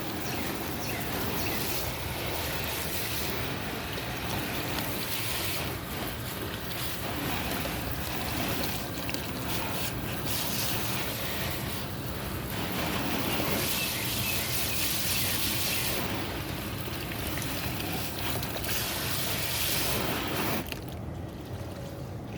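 Running water splashing into and over a plastic tub as it is rinsed of bleach. It runs steadily and stops sharply near the end.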